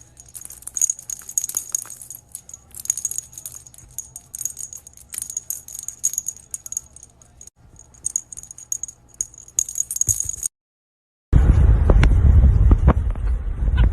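Small bells jingling in irregular shaken bursts for about ten seconds. After a brief silent cut, a loud low rumble takes over.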